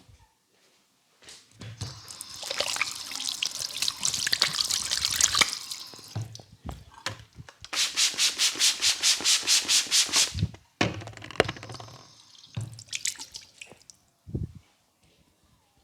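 Hands rubbing vigorously over hair and skin during a head massage, a rough rustling noise. Then comes a quick rhythmic run of strokes, about five a second, for a few seconds, and later a few shorter rubs and a single dull thump.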